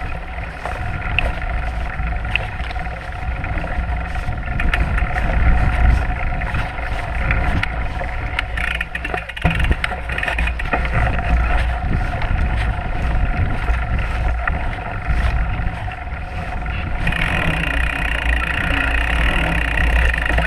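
Fat-tyre mountain bike rolling along a dirt forest trail: a steady low rumble of tyres on the ground with a constant hum above it and frequent small knocks from roots and rocks. The hum grows louder about seventeen seconds in.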